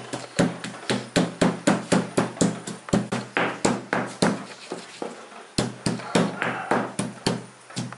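Pestle pounding ginger pieces in a stone mortar, a steady run of dull knocks about four a second. The knocks pause for about a second a little past halfway, then start again.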